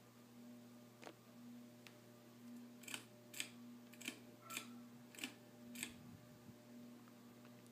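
Litex Vortex ceiling fan motor humming steadily, with a series of sharp clicks about halfway through, six in all, in rough pairs, typical of the pull-chain speed switch being pulled and released as the fan changes speed.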